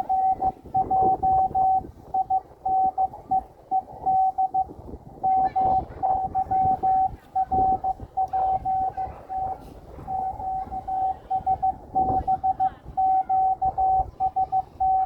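Morse code (CW) from an amateur radio transceiver: one steady mid-pitched tone keyed in rapid dits and dahs, pausing briefly about 5 and 10 seconds in, over a rough hiss and crackle.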